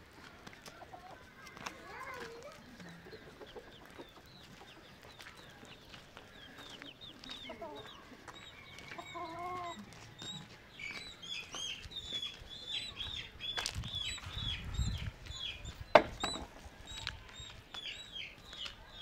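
Chickens clucking, with many quick high chirps in the second half. A single sharp knock about sixteen seconds in is the loudest sound.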